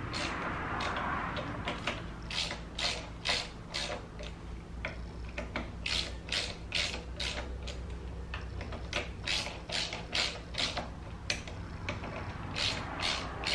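Hand ratchet wrench clicking in quick runs of back-and-forth strokes as it turns a bolt on an engine, with a couple of short pauses between runs.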